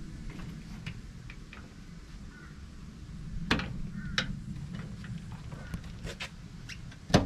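Scattered clicks and taps of hands working at the inner steel panel of a Troop Carrier's front door, with two sharper clicks in the middle and a louder knock near the end.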